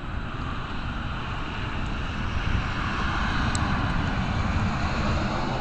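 A vehicle's steady rushing noise over a low rumble, growing louder about two seconds in.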